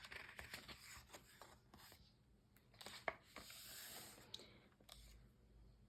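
A paper picture-book page being turned and handled: faint rustling with a few soft clicks, the sharpest about three seconds in.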